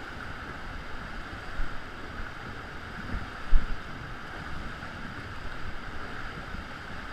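Ocean water sloshing and surging around a kayak inside a sea cave, with wind buffeting the microphone in low rumbles. There is a single low thump about three and a half seconds in.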